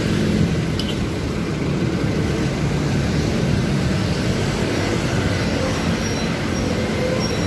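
Steady noise of road traffic passing close by, with one short click about a second in.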